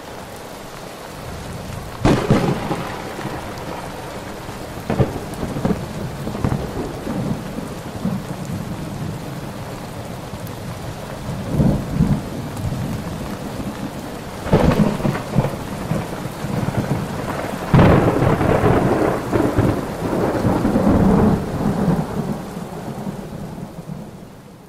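Thunderstorm: steady rain with repeated claps and rolls of thunder, fading out near the end.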